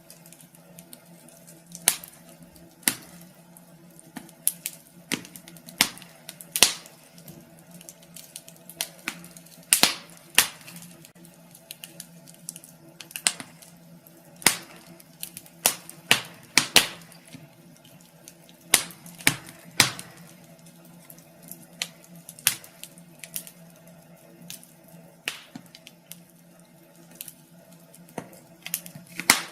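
Wood fire crackling in a fireplace: irregular sharp pops and snaps, some louder than others, over a faint steady low hum.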